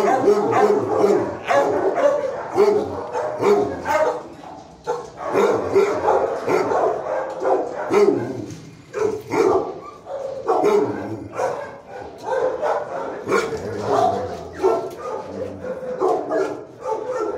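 Shelter dogs barking over and over, with barks following closely on one another throughout.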